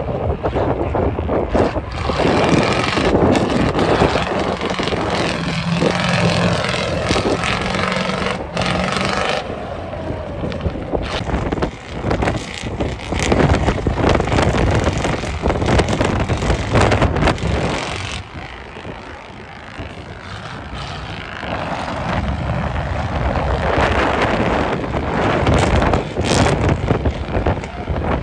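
Off-road truck's engine running hard and rising and falling as the truck drives through shallow water and mud, with wind buffeting the microphone.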